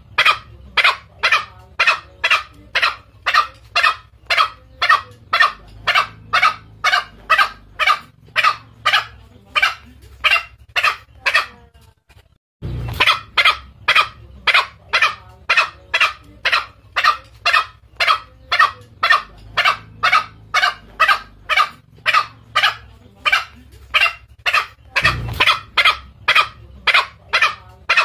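Green junglefowl calling: a rapid run of short, sharp calls, about two or three a second. It breaks off briefly a little under halfway, then the same run starts again. This is a looped lure recording used to draw in male junglefowl.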